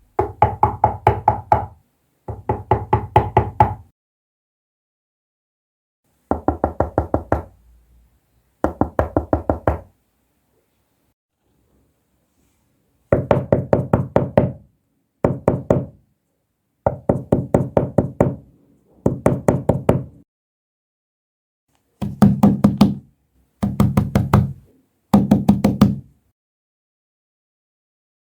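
Knocking on a door: about eleven bursts of quick raps, each burst a run of several knocks lasting a second or two, with pauses between. The tone of the knocks changes from one burst to another.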